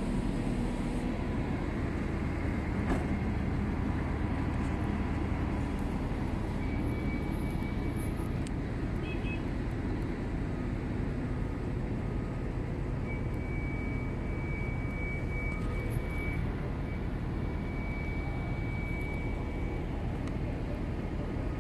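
Heavy crane diesel engine running steadily with a low, even drone. A faint high-pitched pulsing tone comes in twice over it.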